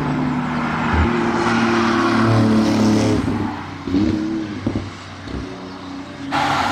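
Porsche 911 GT2 RS twin-turbo flat-six accelerating hard past the trackside microphone, its engine note climbing. About four seconds in the pitch dips and climbs again. Near the end the engine sound jumps abruptly louder.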